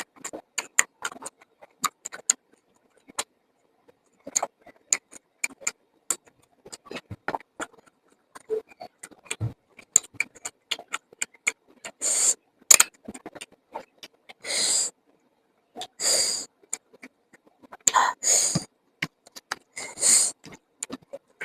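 Close-up mouth sounds of eating: wet chewing with many small clicks and lip smacks, and from about halfway on several louder short bursts of biting or slurping the food.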